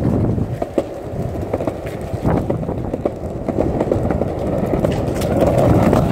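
Skateboard wheels rolling over a concrete sidewalk: a steady rumble, with sharp clacks as the wheels cross the joints between the slabs.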